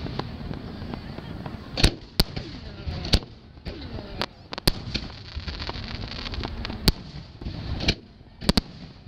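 Aerial fireworks shells bursting overhead: about nine sharp bangs at irregular intervals, the loudest a little under two seconds in and a quick pair near the end.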